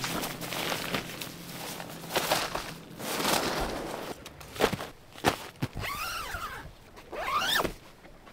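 Camping gear being handled while a tent camp is set up: rustling fabric, a zipper, and several sharp clicks, with two short squeals that rise and fall in pitch near the end.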